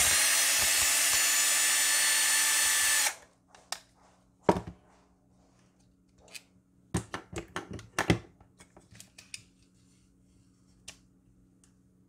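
Cordless drill/driver running steadily for about three seconds on a screw in a hair dryer's housing, then cutting off suddenly. Clicks and clatter of hard plastic parts being handled follow, a quick run of them about seven to eight seconds in.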